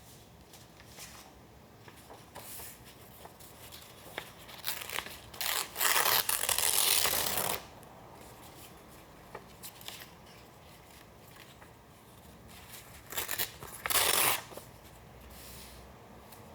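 Paper being torn by hand: a few short rips building into one long tear about six seconds in, and another short burst of tearing near the end, with soft paper handling in between.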